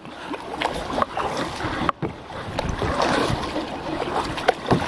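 Kayak being paddled in a river current: water splashing and rushing against the hull and paddle, with irregular sharp splashes and knocks.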